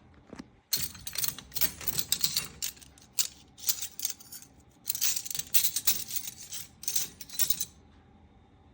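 Dishes and cutlery clinking and clattering as they are handled, in an irregular run of sharp metallic and ceramic knocks with a short pause midway.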